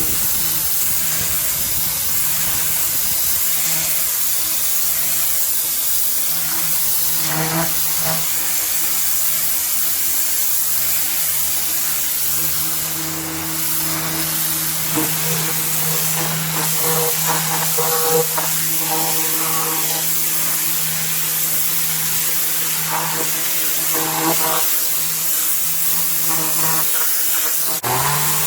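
Kärcher K7 electric pressure washer running: a steady hum from its motor and pump under the loud hiss of the water jet spraying against patio paving.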